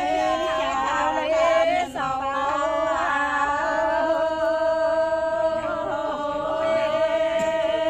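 Chanted singing: a few quick changing notes, then long drawn-out held notes.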